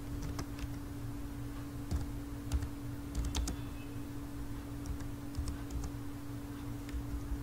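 Typing on a computer keyboard: irregular key clicks over a steady low hum.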